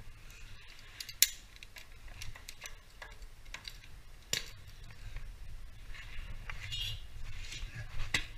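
Metal carabiners and climbing hardware clicking and clinking as they are handled, with sharp clicks about a second in, around four seconds in and near the end.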